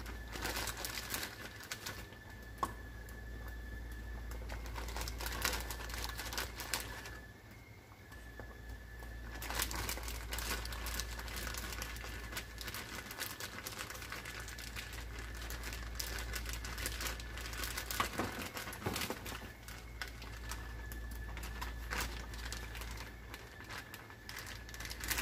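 Plastic zip-top bag crinkling and rustling irregularly in the hands as gnocchi are picked out of it, pausing briefly about a third of the way through.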